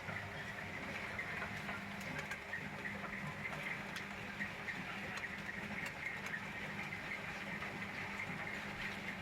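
Many small, irregular light taps and clicks over a steady low hum.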